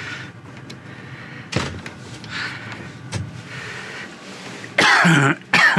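Hut door worked by its handle, with two sharp clacks about one and a half seconds apart. Near the end comes a loud man's vocal sound that falls in pitch, twice.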